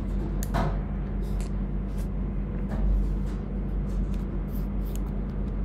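Steady low hum over background noise, with a few short faint clicks.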